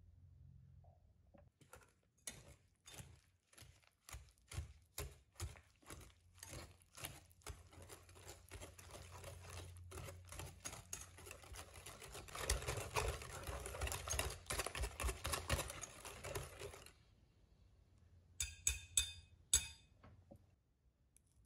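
Wire whisk beating mashed banana, eggs and brown sugar in a glass bowl: rhythmic strokes about two a second, becoming fast and continuous for several seconds before stopping abruptly. About four sharp taps of the whisk against the bowl follow near the end.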